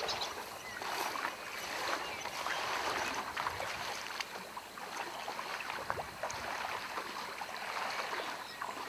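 Shallow stream water splashing and sloshing as people wade through it, a steady crackling of small splashes.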